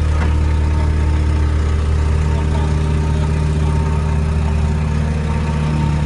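Heavy construction machine's engine idling steadily, a loud low hum.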